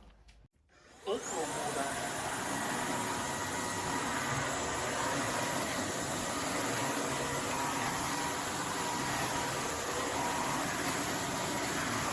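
Roborock F25 RT cordless wet-dry vacuum's motor spinning up about a second in with a rising whine, then running with a steady whoosh of airflow.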